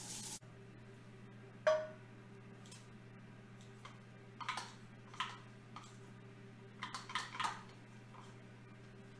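A stirring utensil knocking and scraping against a red enamelled pot as sautéing onions are stirred: scattered clicks and knocks, the sharpest about two seconds in with a brief ring, and a quick cluster around seven seconds. A low steady hum runs underneath.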